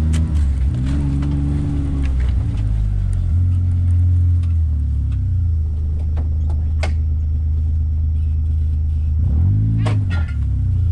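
Off-road side-by-side vehicle's engine running while driving, its pitch rising and falling a few times with the throttle. A few sharp knocks come through, one near the start, one past the middle and one near the end.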